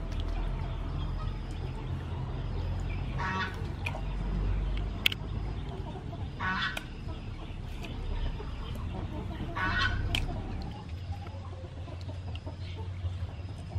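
A chicken gives three short calls, about three seconds apart.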